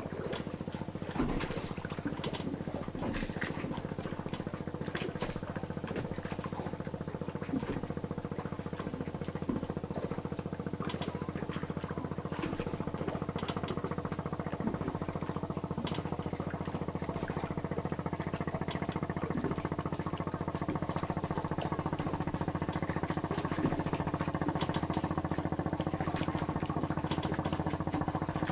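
Boat engine running steadily, a constant drone, with scattered light clicks and taps over it.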